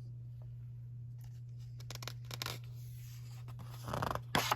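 Faint rustling and small clicks from the pages of a picture book being handled, with a louder rustle about four seconds in and a sharp click just after, over a steady low hum.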